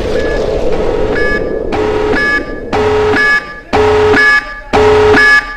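Electronic intro sound effect: a noisy whooshing swell, then from about a second in a loud, pulsing alarm-like tone of several steady pitches, sounding in half-second blasts about once a second.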